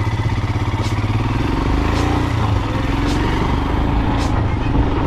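Royal Enfield Himalayan's single-cylinder engine running as the motorcycle rides off, its rapid pulsing settling into a steady note that climbs in pitch as it picks up speed. A faint tick comes about once a second.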